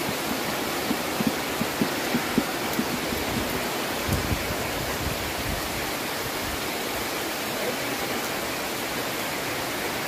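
A steady hiss with a few light taps in the first three seconds or so, as a spoon and tea strainer are worked over small glasses of coffee.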